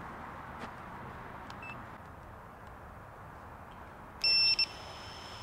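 An FPV quadcopter's arming beep: two short, loud electronic pulses about four seconds in. A faint, steady high whine follows, from its motors spinning at idle once armed.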